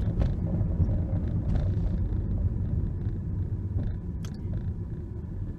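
Low rumble of a car's engine and road noise heard inside the cabin while driving, getting gradually quieter.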